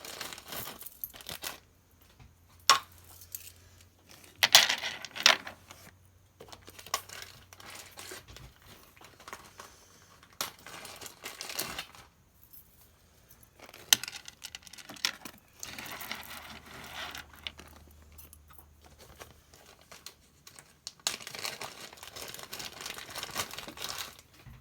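Plastic bead bags crinkling and rustling as strands of smoky quartz beads are handled, in irregular bursts with a few sharp clicks of beads knocking together.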